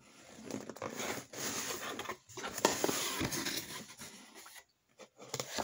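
A cardboard box being opened and the paper items inside handled: rustling, crinkling and scraping with scattered light knocks, dying down after about four seconds.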